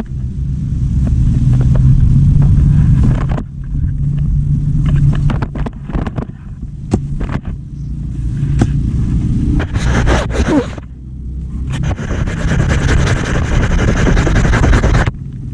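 A heavy engine running steadily at a low pitch, with scattered knocks and clatter and a stretch of scraping noise near the end.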